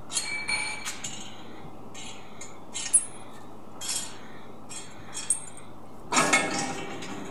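Stainless steel grinding plate assembly of an instant wet grinder handled by hand: a series of light metal clinks and taps with a ringing note, a sharp click about three seconds in, and a louder rattling scrape of metal parts near the end.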